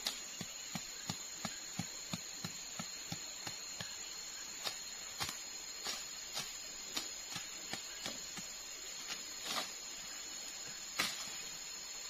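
Short soft knocks from hand work at the forest floor, about three a second at first, then more spaced out, with one louder knock near the end. A steady high-pitched insect drone runs behind.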